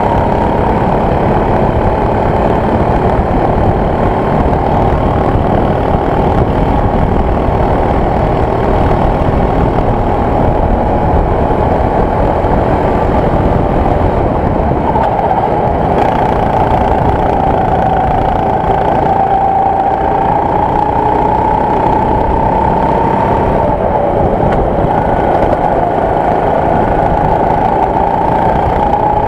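Go-kart engine running hard at high revs over a heavy low rumble, its pitch sagging briefly about halfway through and again a few seconds later before climbing back up.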